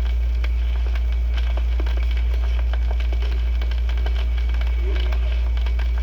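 Steady low hum with the crackle and clicks of an old record's worn surface, and only faint short sounds over it.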